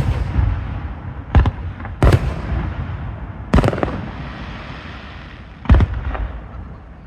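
Aerial fireworks shells bursting: five or six sharp booms at uneven gaps of about a second or two, each trailing off in a rolling rumble.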